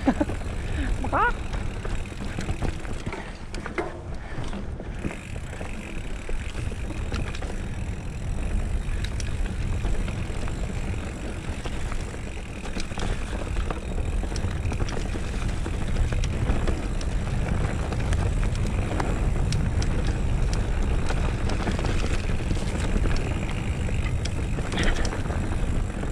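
Mountain bike ridden fast along a dirt forest singletrack, heard from the bike: a steady low rumble of wind and tyre noise, with scattered rattles and clicks from the bike over the bumps.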